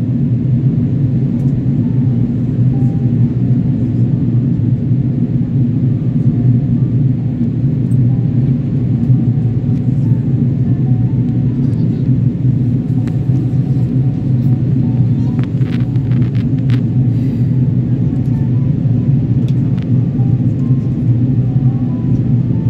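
Steady low rumble of cabin noise inside an Airbus A330-300 in flight: airflow over the fuselage and its two Rolls-Royce Trent 772B engines, heard from a window seat.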